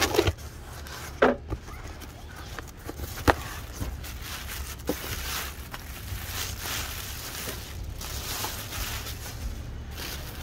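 Handling a taped cardboard shipping box: a few sharp knocks and thumps in the first half as it is tipped and opened, then crinkling and rustling of plastic wrap and foam packing as a hand reaches in.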